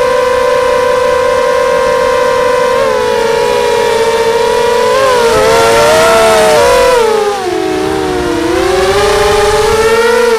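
Brushless motors and propellers of a QAV250 racing quadcopter whining, heard from its onboard camera. The pitch holds steady, then wavers and splits as the throttle changes, dips lower about seven to eight seconds in and climbs back near the end.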